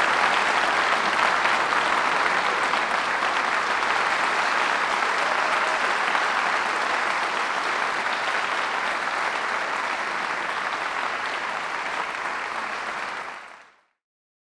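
Audience applauding in a steady, dense clatter that softens slowly and then fades out to silence near the end.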